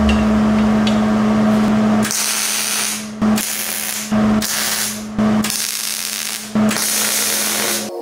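MIG welding a steel gusset onto a truck steering spindle: five crackling, hissing runs of the arc, each about a second long with short pauses between, after a steady hum for the first two seconds.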